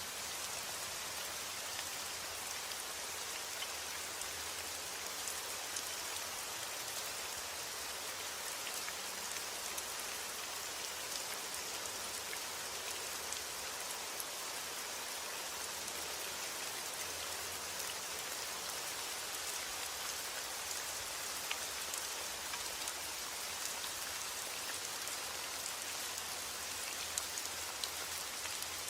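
Steady heavy rain falling on a roof, with individual drops ticking sharply now and then.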